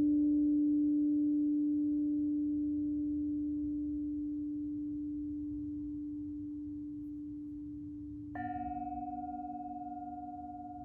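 A struck ringing instrument of the kind used in sound healing: one long ringing tone fades slowly, then a second strike about eight seconds in adds a higher, brighter ring that sustains with a slight wobble.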